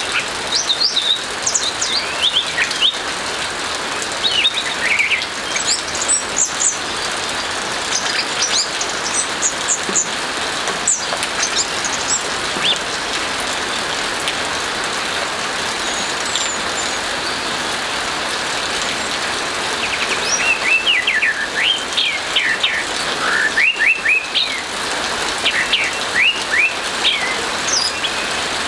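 Orange-headed thrush singing in bursts of quick, sliding high notes, with a lull in the song midway, over a steady hiss of rain.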